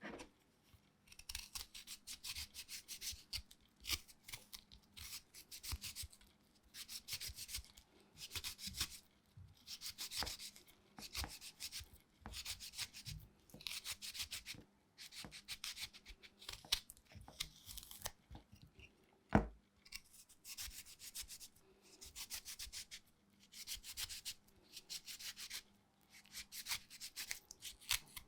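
Food rubbed against a hand grater in quick rasping strokes, coming in runs of a second or two with short pauses between. A single sharp knock about nineteen seconds in.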